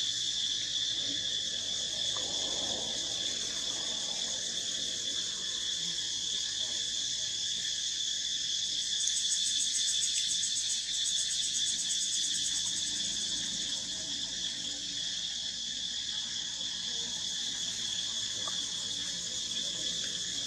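A steady, high-pitched chorus of insects, with a faster pulsing layer joining in from about nine to twelve seconds in.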